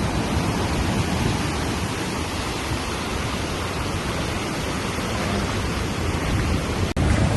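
Hurricane storm noise, a loud, dense, steady rush with no distinct events. Near the end it breaks off for an instant and comes back louder and deeper.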